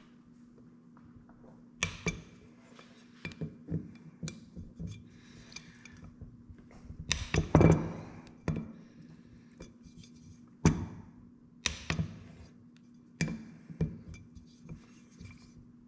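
Metal clutch components being handled, knocked together and set down on a work surface: about a dozen sharp clinks and thunks with a brief metallic ring, the loudest cluster about halfway through. A steady low hum sits underneath.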